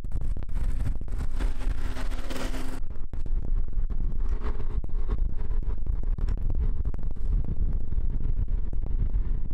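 Steady low rumble of road traffic, with the brighter hiss and hum of a vehicle going by for the first three seconds, which cuts off suddenly and leaves only the lower rumble.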